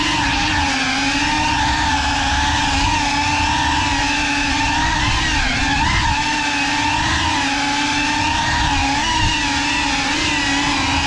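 GEPRC CineLog35 cinewhoop FPV drone's motors and ducted propellers whining steadily in flight, the pitch wobbling slightly up and down.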